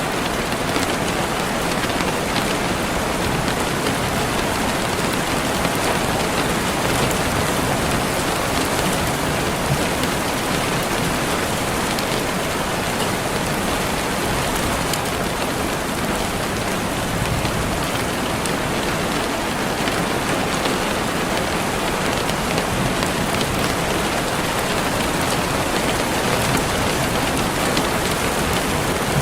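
Steady heavy rain falling and pattering on surfaces, an even unbroken hiss with scattered drop ticks.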